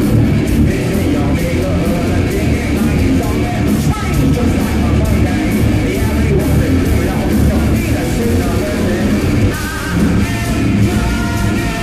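Hard rock band playing live, with electric guitars, bass and drums and a singer's voice over them, heard from the audience.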